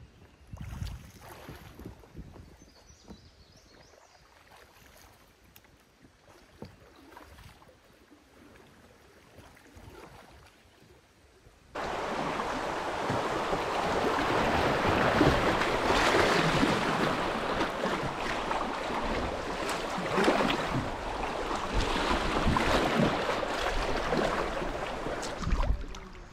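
Faint quiet sounds, then, about twelve seconds in, an abrupt switch to loud, steady rushing and splashing river water around a kayak.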